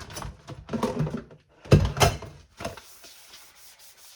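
A few knocks and handling noises of household things being moved and set down, the loudest about two seconds in, followed by faint rubbing.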